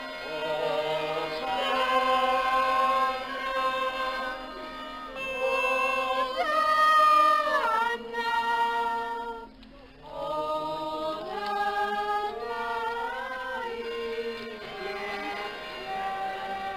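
A group of voices singing a slow religious hymn, holding long notes that slide between pitches, with a short pause for breath a little past halfway.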